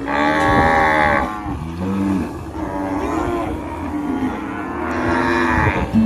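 Cattle mooing: several long, drawn-out moos, the loudest at the start and another near the end.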